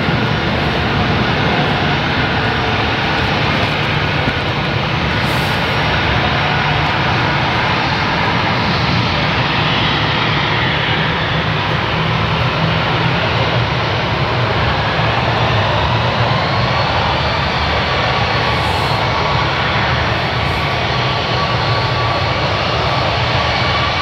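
Jet engines of a Boeing 777F freighter on approach to land, a steady heavy rumble with a whine that bends up and down in pitch through the middle.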